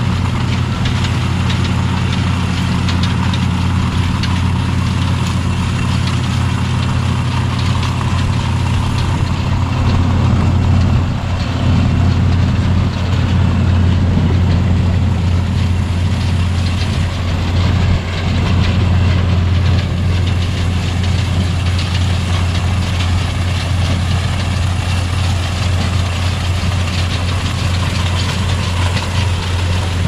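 Engine of a corn harvesting machine running steadily as it cuts standing corn, a constant low hum with machinery clatter over it.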